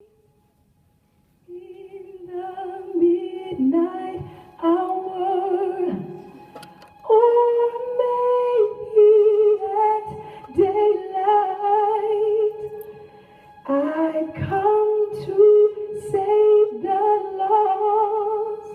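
A woman singing unaccompanied, holding long notes with vibrato in phrases separated by short breaths; it begins about a second and a half in.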